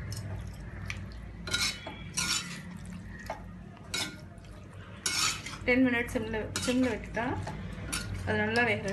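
Stainless steel perforated spatula scraping and clinking against an iron kadai as chicken pieces are stirred, in irregular strokes every second or so.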